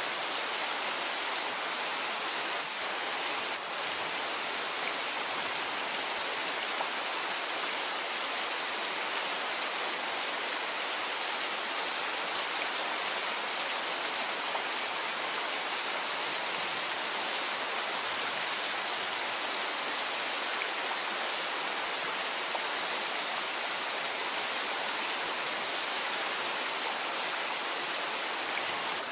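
Steady rain falling, an even hiss of many drops that holds the same level throughout.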